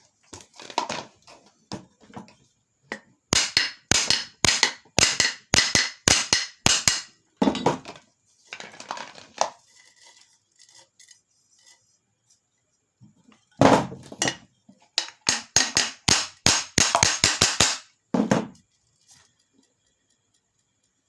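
Sharp metallic taps and clinks from work on a ceiling fan's metal parts, in two quick runs of a few strikes a second, about three seconds in and again past the middle.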